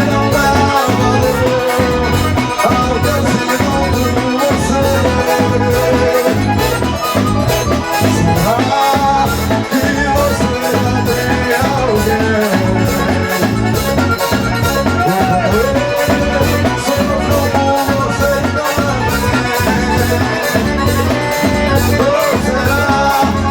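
Accordion (sanfona) leading a forró band tune, over a fast steady percussion beat with a shaker.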